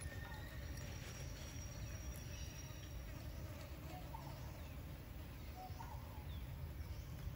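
Faint forest ambience: a steady low rumble, a thin high insect-like tone lasting a couple of seconds, and several short faint chirps in the second half.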